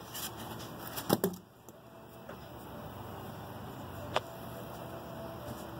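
Styrofoam packing being handled inside a cardboard box: a couple of knocks and a scrape about a second in and one sharp click about four seconds in, over a faint steady hum.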